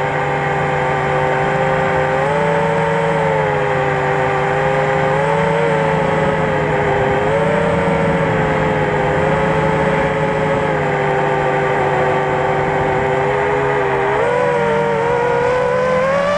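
FPV racing quadcopter's motors and propellers whining steadily. The pitch shifts up and down in small steps with the throttle and climbs near the end.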